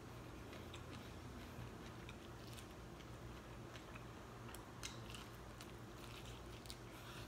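Faint close-up sounds of a person chewing and biting food, with scattered small mouth clicks and crunches over a low steady hum.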